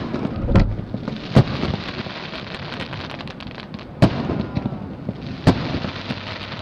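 Fireworks display: aerial shells bursting with four sharp bangs, two close together in the first second and a half and two more about four and five and a half seconds in, over continuous dense crackling.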